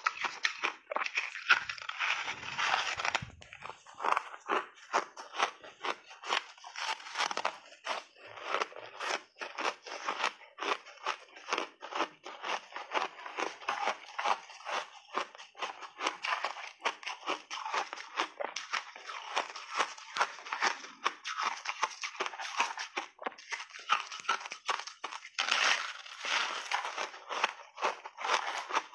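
Refrozen block ice with mixed berries being bitten and chewed in big bites, close to a clip-on microphone: a rapid, continuous run of sharp crunches and crackles, loudest in short spells a couple of seconds in and near the end.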